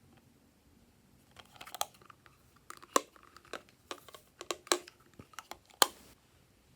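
Glossy slime being squeezed and kneaded by hand, giving a quick series of sharp wet clicks and pops that starts about a second and a half in, with the loudest pop near the end.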